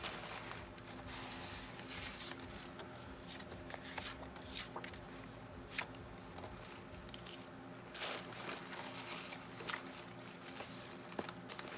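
Paper and card stock rustling and tapping as a box of craft scraps is rummaged through by hand, with scattered soft clicks.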